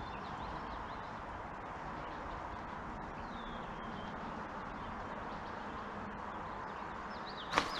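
Steady rushing of flowing creek water, with small birds chirping now and then above it. A sudden loud burst of noise comes right at the end.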